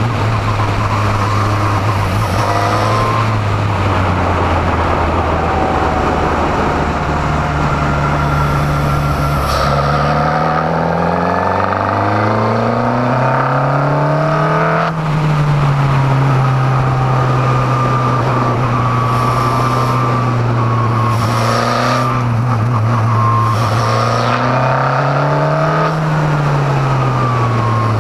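Formula Renault 2.0 race car's 2.0-litre four-cylinder engine heard onboard, running at steady revs, climbing about ten seconds in and holding, then rising and falling again near the end as the driver lifts off.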